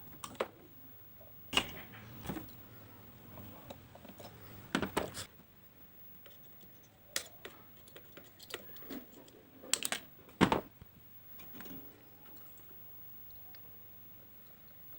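Scattered sharp clicks and knocks, about a dozen at irregular intervals with quiet between, from small tools and parts being handled on a workbench.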